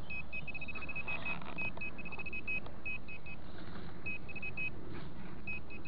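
Handheld metal-detecting pinpointer probe beeping as it is moved through the soil of a dug hole: short high-pitched beeps, sometimes in quick runs and sometimes in twos and threes, showing that it is picking up a metal target.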